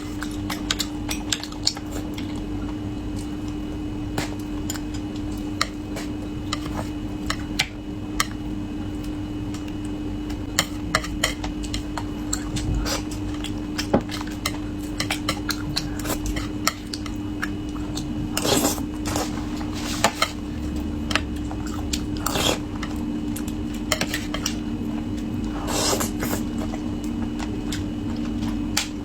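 Kitchen utensils clinking and scraping against pots and dishes as food is prepared, with many small knocks and a few louder scrapes in the second half, over a steady low hum.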